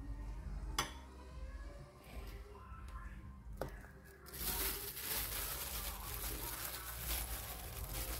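A metal spoon scrapes meat paste out of a plastic tub and clinks against a ceramic bowl. About four seconds in, a plastic bag crinkles steadily as it is handled, the loudest sound.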